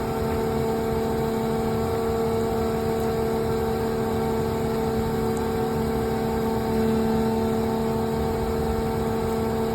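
Engine idling steadily, a constant droning hum that swells slightly about seven seconds in; most likely the volumetric concrete mixer truck's engine.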